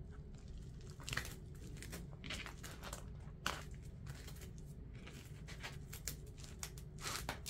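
Hands pressing a styrofoam block onto a foam sheet and smoothing the sheet along its edges: a scattering of short, faint rustles and scratches.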